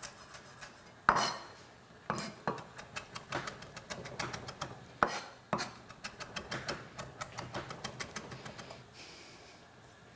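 Chef's knife rough-chopping fresh coriander on a wooden chopping board: a quick, irregular run of knife taps against the wood, a few of them louder knocks. The chopping thins out near the end.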